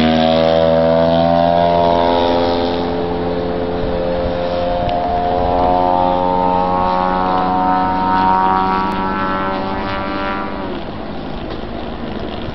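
Radio-controlled model airplane's engine and propeller running at high throttle as it takes off and climbs. The pitch rises through the middle and then drops suddenly about ten and a half seconds in, and the sound grows a little quieter after the drop.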